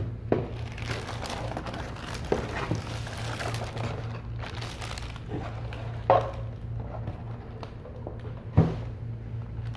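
Plastic packaging and paper rustling and crinkling as they are handled, with a few sharp knocks, the loudest about six and eight and a half seconds in. A steady low hum runs underneath.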